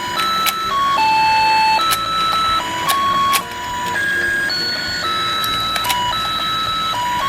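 A battery-operated toy fishing game playing its electronic tune: a simple melody of beeping notes, with sharp clicks now and then.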